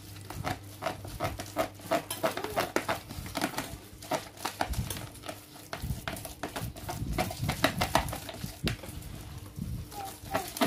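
A spoon knocking and scraping against a can and a mixing bowl as fishing bait is mixed: rapid, irregular clicks and clatters.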